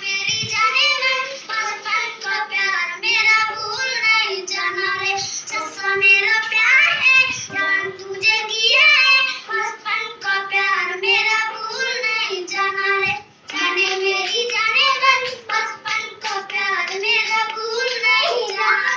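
A young girl singing a song, with hand claps along the way and a short pause about two-thirds through.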